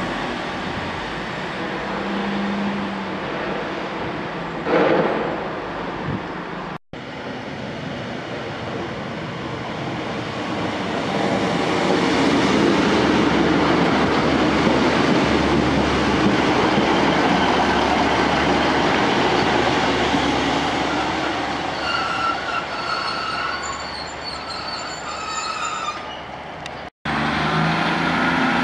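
A Sprinter-family diesel multiple unit running into a station past the platform: a steady rumble of engine and wheels that swells as the carriages pass close by, with high-pitched squealing from the wheels and brakes for a few seconds near the end as it slows.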